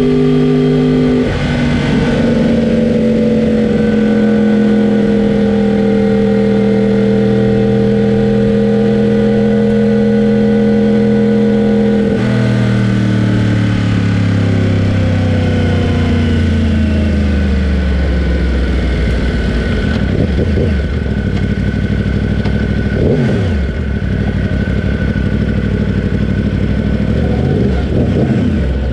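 Racing motorcycle engine heard from on board, running at a steady cruise with the pitch stepping down about a second in. From about twelve seconds in the engine note falls steadily as the bike slows, then settles to a low, even running sound at walking pace.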